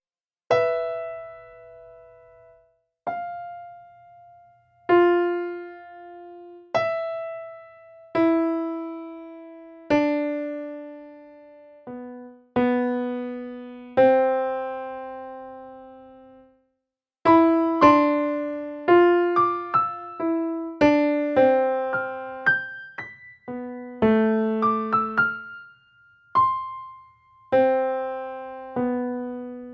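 Slow solo piano music: sparse single notes and chords that ring out and fade, with short silences between them. From about halfway through the notes come quicker and closer together.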